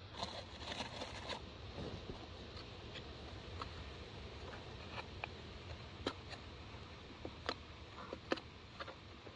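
Fingers raking and scraping through loose, sandy soil in a quartz crystal pocket. A dense scratchy rustle in the first second and a half, then quieter scratching with scattered small, sharp clicks of grit and small stones.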